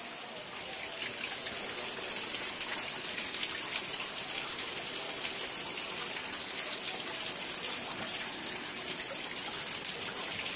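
Rainwater rushing steadily, an even hiss of falling and running water that grows slightly louder about a second and a half in.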